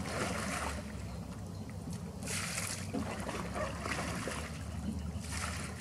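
Oars splashing in the water as a 12-foot aluminum rowboat is rowed, a wash of splashing every couple of seconds over a steady low rumble.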